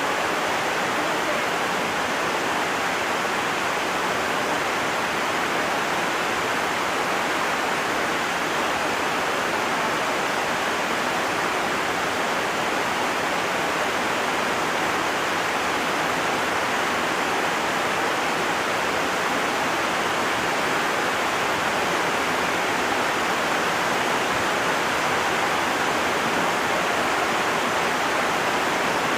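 Heavy rain falling, a steady, even hiss that doesn't let up.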